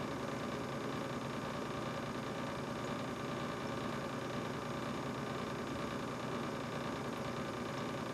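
Brand-new GE refrigerator running: a steady mechanical hum with several held tones over an even hiss.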